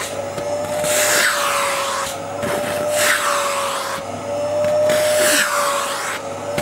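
Vacuum cleaner running with a steady motor whine while its hose nozzle is drawn in strokes over a cat's fur. The rush of suction swells and fades about every two seconds.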